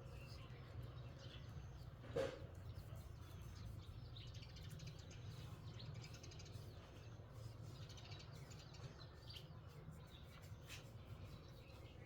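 Faint bird chirps over a low steady hum, with one sharp knock about two seconds in.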